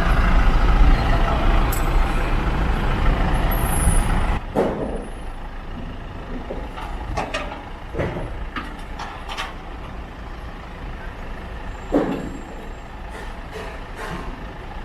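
Tow truck engine running with a heavy low rumble, which stops abruptly about four seconds in. Scattered sharp knocks and clanks follow over a quieter background.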